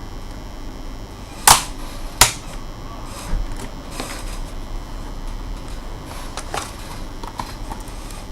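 Two sharp clicks about a second and a half in, under a second apart, followed by fainter scattered clicks and taps from the casing and parts of an HP 255 G5 laptop being handled during disassembly.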